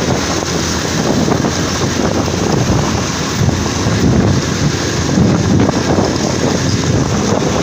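Wind buffeting the microphone of a camera on a moving motorcycle: a loud, steady rushing noise, heaviest in the low range.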